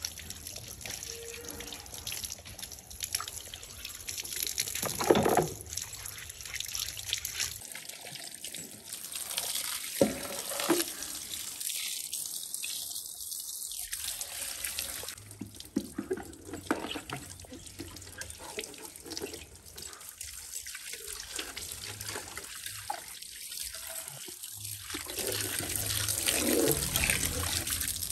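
Water sloshing, splashing and running as a plastic air-filter housing and its mesh grille are scrubbed and rinsed in a tub of soapy water. A few sharp knocks of the plastic parts come about five and ten seconds in.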